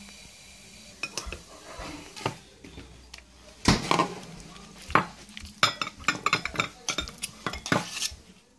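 Kitchenware being handled: a stainless steel pot and a plate knocking and clinking. Scattered light clicks, two louder knocks about four and five seconds in, then a run of quick clinks near the end.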